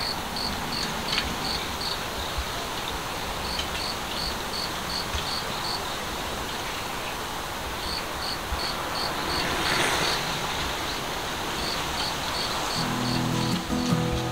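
An insect chirping in short, even pulses, about three a second, in bouts of a couple of seconds with pauses between, over a steady background hiss. A soft rush of noise swells about two-thirds of the way through, and strummed acoustic guitar music comes in near the end.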